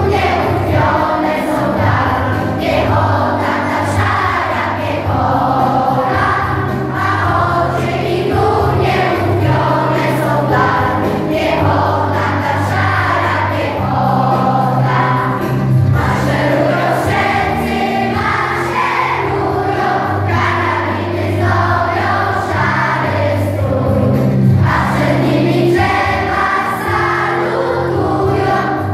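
A children's choir and a few women singing a song, accompanied by an electronic keyboard with sustained bass notes.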